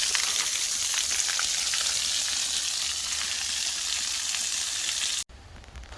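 Heavy rain falling: a steady hiss with scattered drops ticking, cutting off abruptly about five seconds in.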